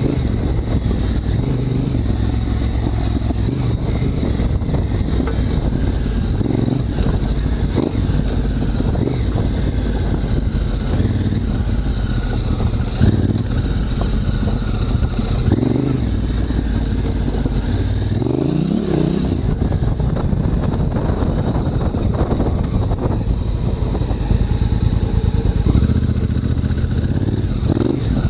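Honda Africa Twin CRF1000L's parallel-twin engine running under way, its revs rising and falling with one clear climb in revs about two-thirds of the way through.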